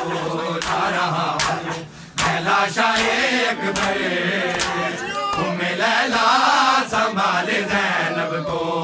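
Large crowd of men chanting a noha refrain together, with sharp slaps of hands striking bare chests (matam) in a steady beat a little faster than one a second.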